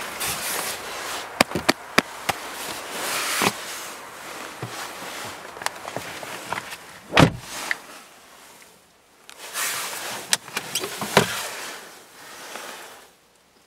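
Clicks and knocks from a 2006 Renault Megane's interior fittings being handled, first the door-panel controls and then the glove compartment opening, with rustling between them. A sharp knock about seven seconds in is the loudest.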